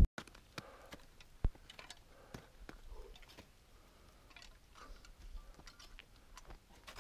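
Scattered faint clicks and knocks of crampons and an ice axe against rock while climbing, with one louder knock about one and a half seconds in.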